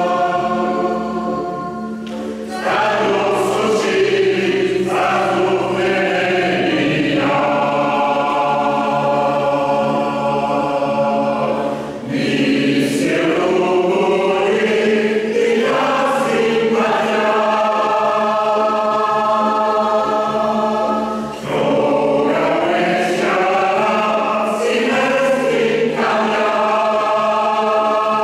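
Mixed choir of men's and women's voices singing in parts over a steady held low note. The phrases are split by brief breaks about a third and three-quarters of the way through.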